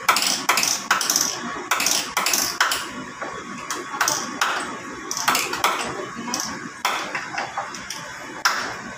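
Two claw hammers driving steel nails into wooden lumber: uneven, sharp strikes about two a second, each with a short metallic ping.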